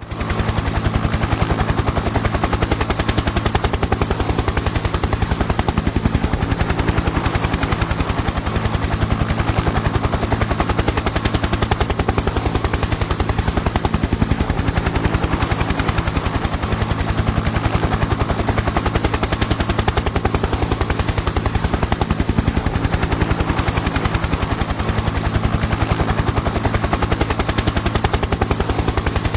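Helicopter in steady flight: the rotor blades chop in a rapid, even beat over a steady engine drone, with no change in level.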